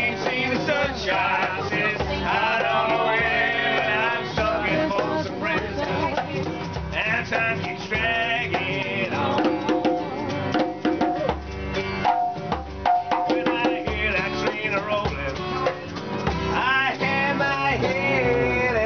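Acoustic guitar and djembe hand drum played together in a lively acoustic jam, with a wavering melody line carried over them.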